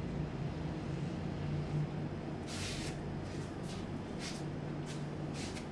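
Marker pen strokes on a whiteboard: a few short, scratchy strokes from about halfway in, over a steady low hum.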